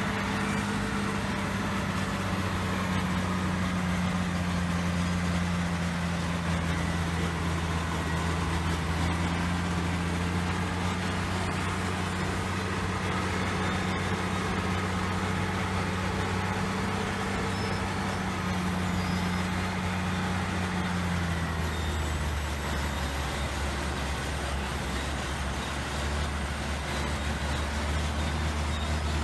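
Heavy diesel engine running steadily, with its pitch dropping about three quarters of the way through as the revs come down.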